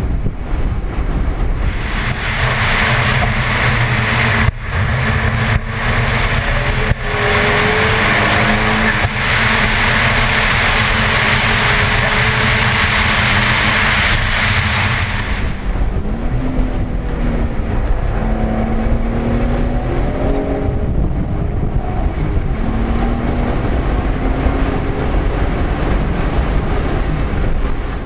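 Nissan 300ZX's V6 engine running hard on track, with tyre and wind noise. From about two seconds in until about sixteen seconds, a loud, steady hiss of wind buffeting the microphone covers the engine. After that the engine comes through clearly, its pitch climbing several times as it accelerates.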